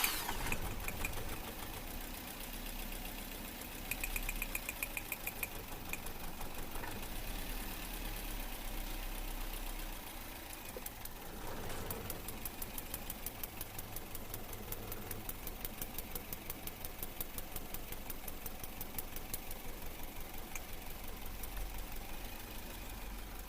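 Engine idling unevenly with a rhythmic pulsing knock, typical of a misfiring engine.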